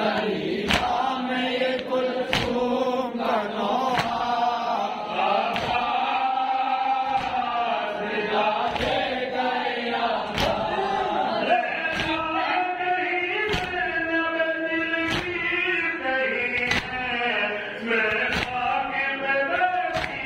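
Male voices chanting a noha, a Shia Urdu mourning lament. Sharp claps of matam, hands striking chests, keep an even beat about every second and a half.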